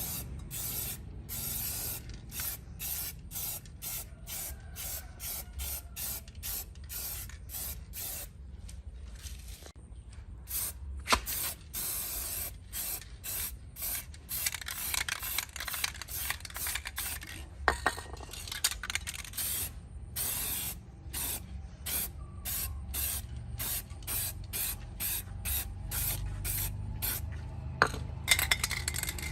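Many short hissing strokes, one after another about once or twice a second, over a low steady hum.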